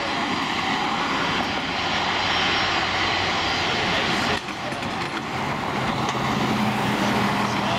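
Jet airliner engines running, a steady rush of noise with a brief dip about four and a half seconds in.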